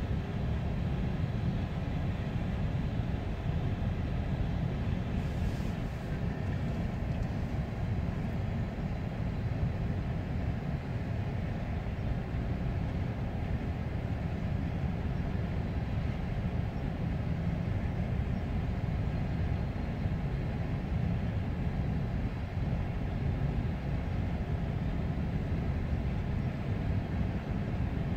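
Freight train of coal hopper cars rolling steadily past, a continuous low rumble heard from inside a car's cabin.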